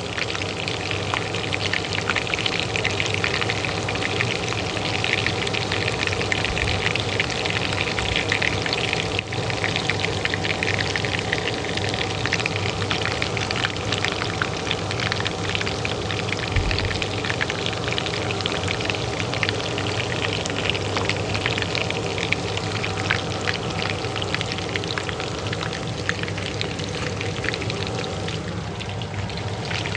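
Hot oil frying in a pan, a dense steady sizzle of crackles and pops, over the steady hum of a kitchen range hood fan.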